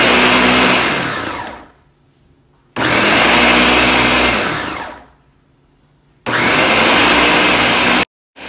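Countertop blender pulsing chunks of peeled banana into a purée: three runs of about two seconds each. After the first two, the motor winds down with a falling pitch as it coasts to a stop. The last run cuts off suddenly.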